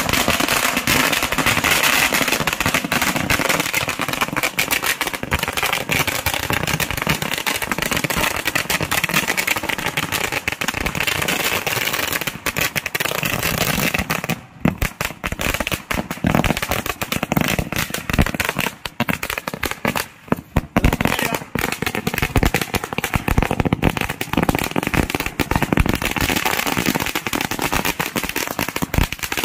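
A 10,000-wala string of firecrackers (saravedi) going off in a rapid, continuous barrage of bangs, with a couple of brief lulls past the middle.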